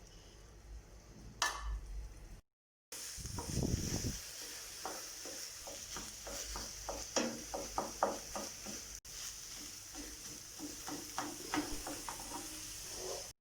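Food sizzling in a pan with a steady hiss while a utensil stirs it, scraping and clicking against the pan in short strokes. This starts after a short quieter stretch.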